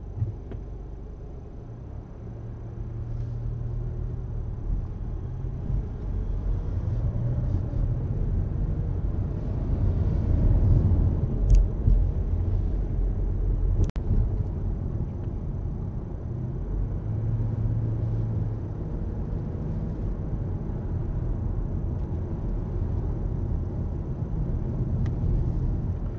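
Car engine and tyre rumble heard inside the cabin as the car pulls away from a standstill and drives on, growing louder about two seconds in. Two short clicks midway.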